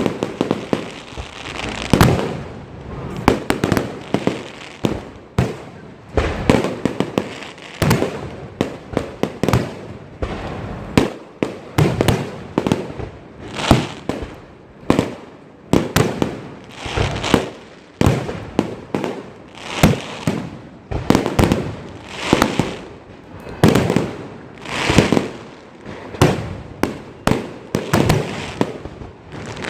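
Fireworks going off in a continuous barrage: sharp bangs every second or two, with rapid crackling and popping between them.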